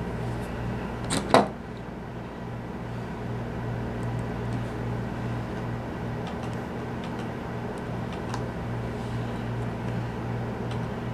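A sharp double click about a second in as metal hand tools are handled on a wooden table at a soldering jig, with a few faint light ticks later, over a steady low hum.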